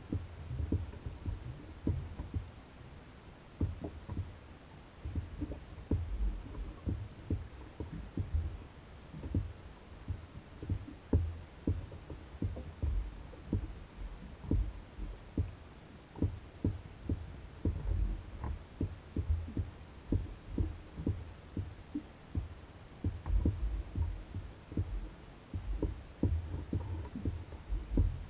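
Small waves slapping and knocking against the hull of an Old Town Guide 119 canoe as it bobs on the lake: irregular low thumps, a few each second.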